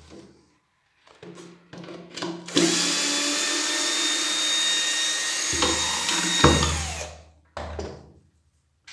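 Cordless drill-driver running for about four seconds, backing a screw out of a wooden slat and its metal angle bracket; the motor whine stops abruptly about seven seconds in. Short knocks from handling the wooden box come before and after.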